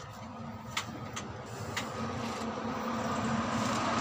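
A vehicle engine running with a steady low hum that grows louder, with a few sharp clicks in the first two seconds.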